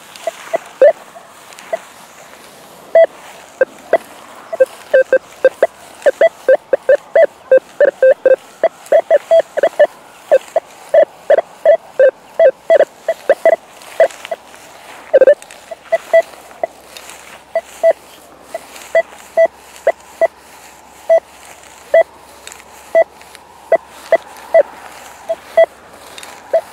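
Rutus Alter 71 metal detector on its basic (Dynamik) program giving many short, choppy beeps in irregular runs as the coil is swept over the ground, with one longer, louder beep about halfway through. These are jumpy signals that do not settle into a clear-cut target tone.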